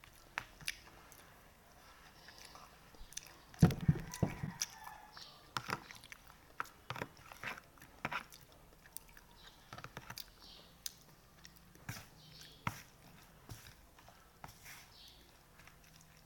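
A person eating pancit batil patong close to the microphone: irregular chewing and mouth smacks with scattered sharp clicks, and a louder burst about four seconds in.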